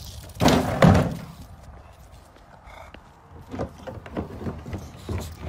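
A plastic wheeled trash bin thunking as a bulldog shoves into it with its head: two loud knocks close together about half a second in, then a few lighter bumps near the end.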